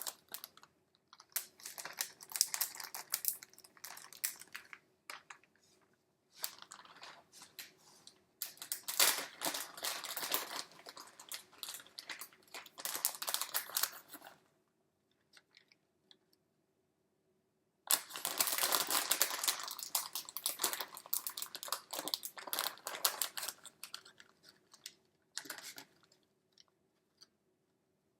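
Hands crinkling and rustling while assembling tacos, in several bursts of a few seconds with a quiet gap of about three seconds in the middle.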